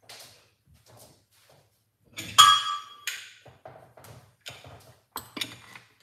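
Kitchenware being handled: a sharp clink that rings briefly about two seconds in, the loudest sound, among a run of lighter taps and knocks.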